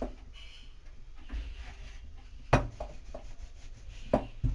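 Rolling pin rolling dough out thin on a board: a low rubbing roll, with a sharp knock about two and a half seconds in and two more near the end.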